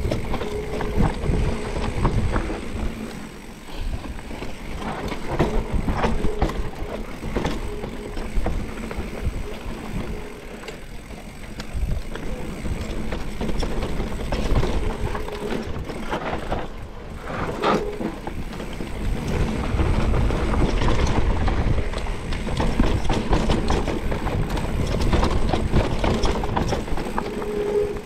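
Mountain bike descending a dirt singletrack: wind rushing on the camera's microphone, tyre noise on the dirt, and the bike rattling and knocking over bumps.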